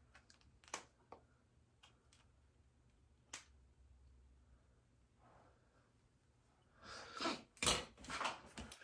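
Small scissors snipping through a nylon wig cap around the ear: a few faint, sharp snips spread over the first three and a half seconds. Near the end come several louder rushes of noise and a thump.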